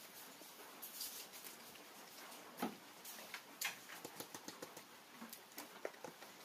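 Faint close-up eating sounds: irregular small clicks and smacks of chewing and of fingers picking food off a banana leaf, with two sharper clicks near the middle and quicker clicking after that.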